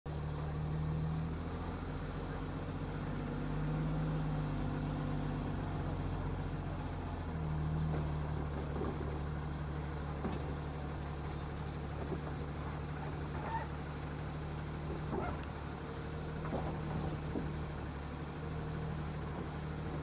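Engine of an automated side-loader garbage truck running, swelling up three times in the first eight seconds as the truck pulls along, then holding steady with a few light knocks.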